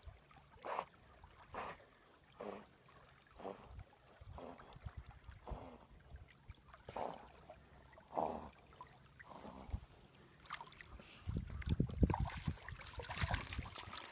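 Water sloshing and splashing as a German shorthaired pointer swims carrying a Canada goose, in soft regular strokes about once a second. Louder, busier splashing from about ten seconds in as the dog reaches the bank and climbs out of the water.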